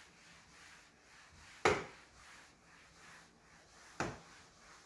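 Sabco Rinse n Wring flat mop's wet pad being wiped faintly across a painted wall, with two sharp knocks, one about a second and a half in and one near the end, as the mop head bumps against the wall.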